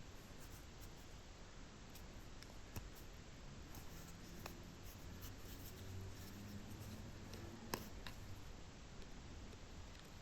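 Faint small clicks and scraping of a screwdriver prying at the clips of a plastic heater blend door actuator housing, with one sharper click about three-quarters of the way through.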